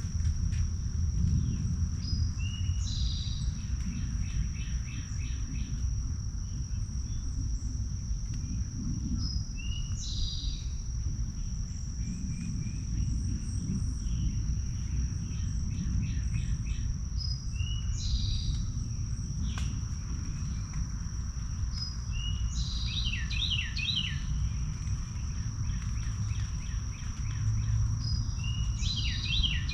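A songbird sings a short, falling, warbled phrase about five times, roughly every six to seven seconds. Under it runs a steady high-pitched insect trill and a constant low rumble.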